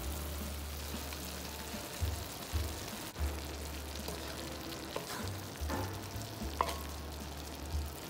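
Chicken, broccoli and green onion stir-fry sizzling in a hot pan, with a few scrapes and knocks of a wooden spoon stirring it. The dish is at the end of cooking.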